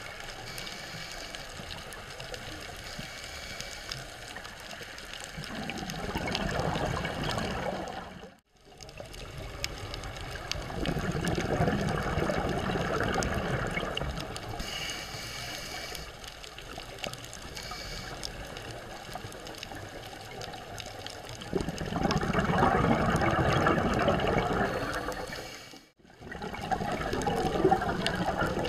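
Underwater sound of a scuba diver's regulator: several bursts of exhaled bubbles a few seconds long, with steadier hiss between them. The sound drops out briefly twice.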